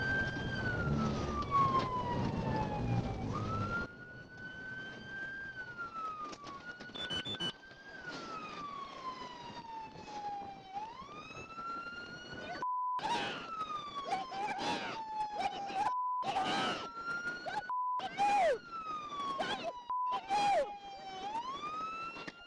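Police car siren wailing, its pitch slowly rising and falling over and over. For the first four seconds road and engine noise runs under it, then drops away as the cruiser stops; from about halfway, short steady beeps and sharp clicks break in between the wails.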